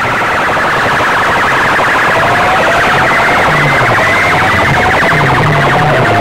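Massed horn loudspeakers of a festival sound system blaring a loud, siren-like electronic tone that pulses rapidly, with short upward glides repeating about twice a second over low bass notes.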